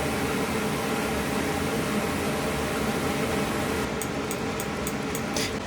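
Steady fan-like room noise, with a quick run of light, high clicks starting about four seconds in and a sharper click near the end.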